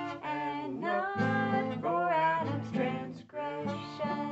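A woman singing a melody with held notes, accompanied by a strummed acoustic guitar.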